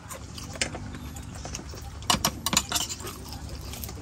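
Light clinks and clatter of dishes and utensils at a meal table, a cluster of sharp clicks about two seconds in, over a steady low hum.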